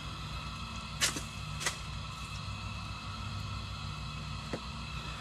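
Steady low hum with two sharp clicks about a second in and a fainter click near the end.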